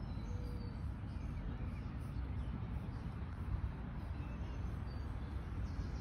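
Outdoor ambience: a steady low rumble with a few faint, short bird chirps scattered through it.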